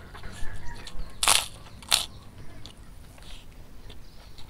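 Close-miked eating sounds of a mouthful of fried rice vermicelli noodles being chewed, with two short, loud mouth sounds about a second in, half a second apart, and softer smacks and clicks around them.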